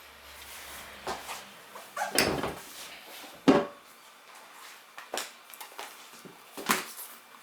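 Scattered knocks and clatter of tools and parts being handled during hand work on a motorcycle wheel, with four or five sharp clacks, the loudest about three and a half seconds in.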